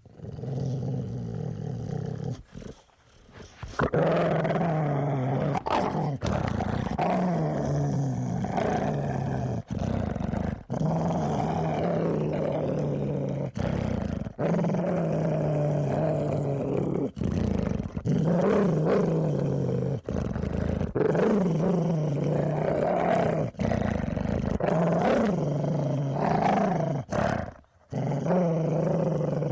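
A dog growling, deep and menacing, in long rumbles that waver up and down in pitch and break off briefly every second or few between breaths.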